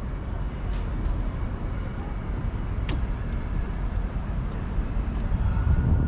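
Steady low rumble of vehicles, with a single sharp click about three seconds in.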